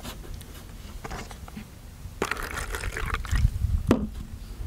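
A drink poured from a bottle into a plastic cup, a splashing trickle lasting under two seconds from about two seconds in, with a few light clicks of cups and bottles being handled.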